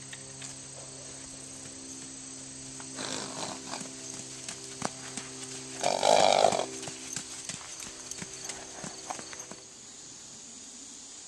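A pony's hoofbeats on dirt: scattered soft clip-clops, with a louder burst of sound about six seconds in. A steady hum runs underneath and stops shortly before the end.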